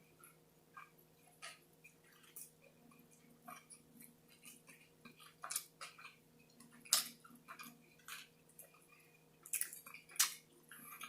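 A person chewing a Burger King Whopper close to the microphone: irregular wet mouth smacks and clicks, faint, coming more often and louder in the second half.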